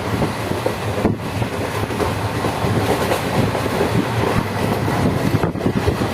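Indian Railways passenger train running along the track: a steady, loud rumble and rattle of the coaches and wheels.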